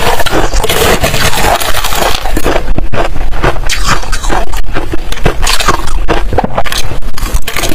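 Metal spoon scraping snowy, frosty ice from inside a hollow balloon-ice shell, then crunching of the ice as it is bitten and chewed, close to the microphone. Dense crackling clicks with no pauses.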